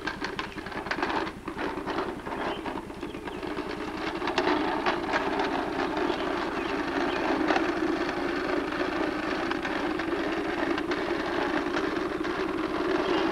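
Toy bubble lawn mower pushed across concrete: its plastic wheels and clicking mechanism rattle steadily, with scattered sharp clicks, getting louder about four seconds in.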